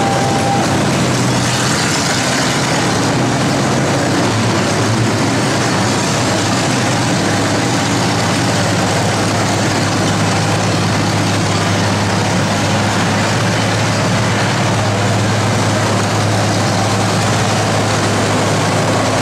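Antique tractor engine idling steadily, with no revving or changes in pace.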